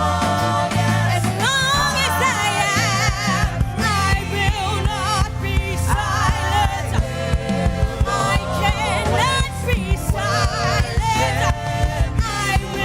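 Gospel worship music: a lead singer with vibrato over bass, keys and a steady drum beat.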